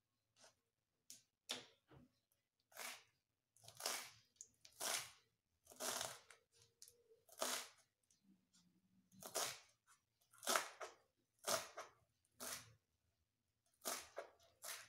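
Kitchen knife slicing through a bunch of fresh chivai greens on a plastic chopping board: short crunchy strokes, roughly one a second, with a brief pause midway.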